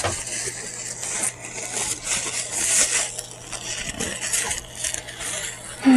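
Close-miked chewing and lip-smacking: irregular wet, crackly mouth noises of someone eating moo shu chicken, with a short hum that falls in pitch near the end.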